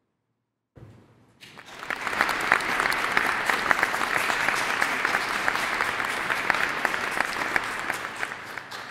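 Audience applauding after a piano piece. The clapping starts about a second in, quickly builds to a steady dense clatter and begins to die away near the end.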